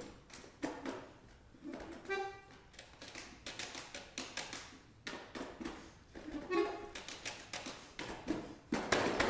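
Accordion played with extended techniques: a rapid, irregular scatter of clicks and taps, broken by two brief short notes about two seconds in and again past six seconds, and growing denser and louder near the end.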